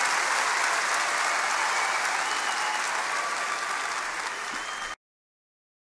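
Audience applause, fading slightly and then cut off suddenly about five seconds in.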